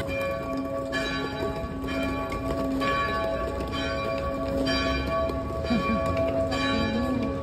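Church bells ringing, with a new stroke about once a second over the bells' sustained hum. A low rumble of street noise runs underneath.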